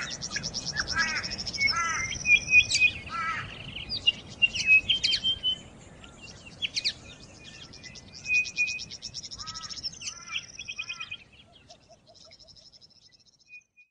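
Birds chirping and trilling: rapid high trills mixed with short sweeping chirps, thinning out and fading away near the end.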